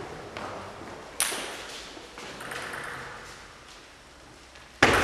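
Table tennis ball clicks echoing in a large gym hall: a sharp click about a second in and a couple of faint taps, then a loud hit near the end as a serve is struck.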